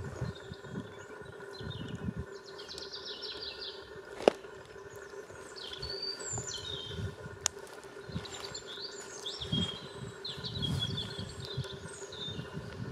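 Small songbirds singing and chirping, with short high twittering phrases overlapping throughout, over low gusts of wind on the microphone and a faint steady hum. A sharp loud click sounds about four seconds in, and a smaller one a few seconds later.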